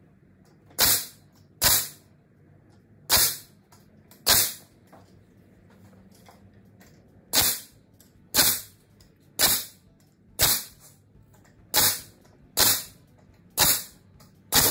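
A DeWalt pneumatic nailer firing about a dozen times, roughly once a second in uneven pairs and runs, driving nails into the boards of a wooden table top. Each shot is a sharp crack that dies away over about half a second.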